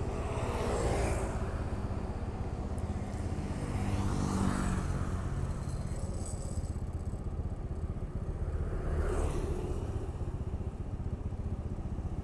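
Street traffic passing close by: three vehicles swell and fade, about a second, four and a half and nine seconds in, the middle one dropping in pitch as it goes past, over a steady low engine rumble.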